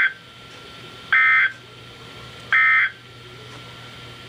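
EAS end-of-message data bursts: the SAME code's two-tone buzzing squawks, three short bursts about 1.4 s apart (the first ending right at the start), signalling the end of the alert message. A faint steady hum lies underneath.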